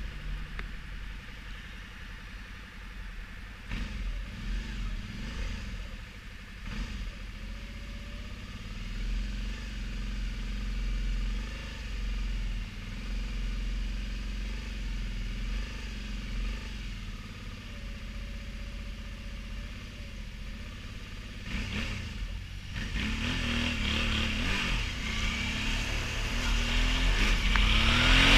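Motorcycle engine idling steadily while stopped, then revving and pulling away near the end, with wind noise building as it picks up speed.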